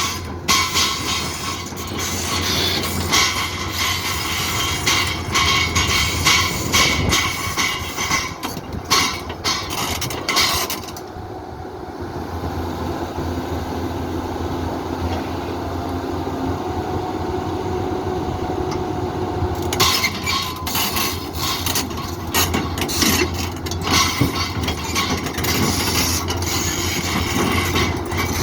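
Kobelco SK200 excavator running with a steady low engine hum while its steel tracks clank and rattle as it drives up to be loaded. The clatter stops for about nine seconds in the middle, leaving the engine and a faint whine, then resumes.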